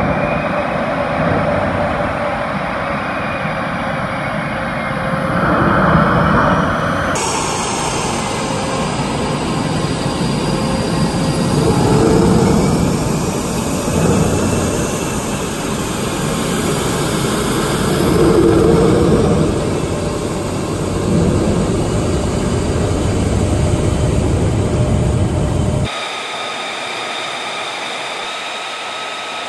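Twin General Electric F414 turbofans of an F/A-18F Super Hornet running as the jet taxis: a steady jet rumble and whine that swells in loudness every few seconds. About 26 s in, after a cut, it gives way to a thinner, steady high jet whine from an idling jet.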